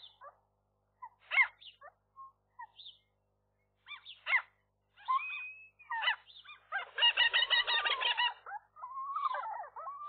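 Common gulls calling at the nest: a string of short, sharp calls that sweep up and down in pitch, then about seven seconds in a louder, harsher call lasting about a second, followed by a long wavering call near the end.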